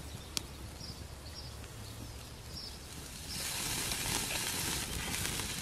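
Beef burger patties sizzling on a wire grill grate over a wood fire; about three seconds in the sizzle turns much louder and hissier as the patties are turned onto their raw sides. A single sharp click sounds just under half a second in.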